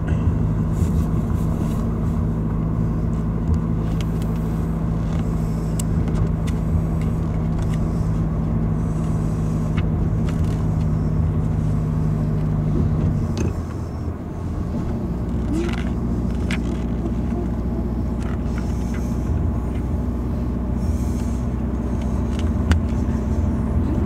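Road and engine noise heard inside a moving car's cabin: a steady low hum with a wash of tyre noise. A little past halfway the engine's steady tone changes and the level dips briefly, and there are a few light clicks.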